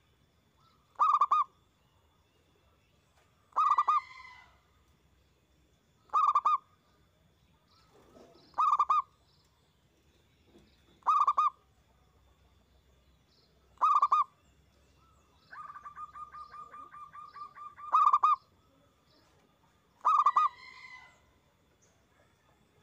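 Zebra dove (perkutut) cooing: a loud, short call about every two and a half seconds. About two-thirds of the way through, a rapid rolling trill of quick even pulses runs for a couple of seconds.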